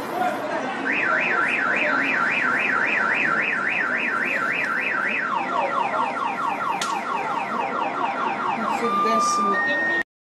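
Car alarm siren cycling through its tone patterns: a rising-and-falling warble about three times a second, then a faster run of falling chirps, then two short steady tones. It cuts off abruptly near the end.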